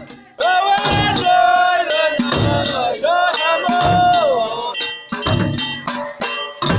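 Amazigh ahwash music: a group of voices singing long held notes, about a second each with short breaks between, over struck percussion.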